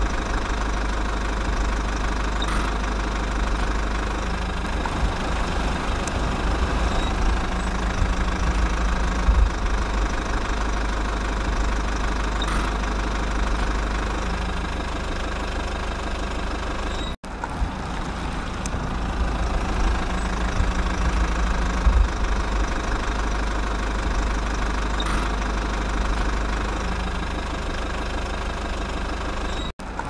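An engine running steadily at idle with a knocking rumble, cut off for an instant twice, once about midway and again near the end.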